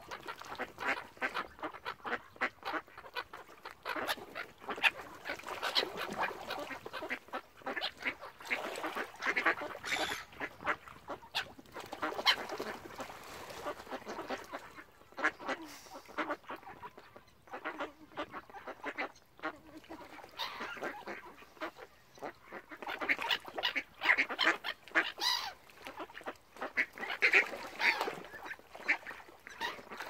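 A flock of mallard ducks quacking and calling over one another without a break, with honking calls among them; the calling swells loudest twice, in the middle and again near the end.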